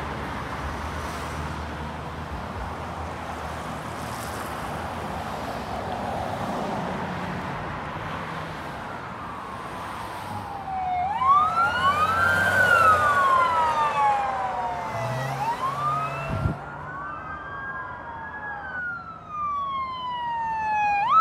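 Road traffic passing, then from about halfway an approaching fire engine's siren wailing, rising and falling in pitch and growing louder. For a few seconds a second siren wail overlaps it.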